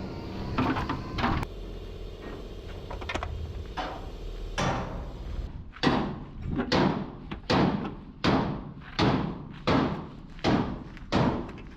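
Hammer blows on sheet steel at a steady pace, about one every three-quarters of a second from about six seconds in, each ringing briefly: panel-beating on the damaged truck cab. Before that there are a few scattered knocks over a low steady hum.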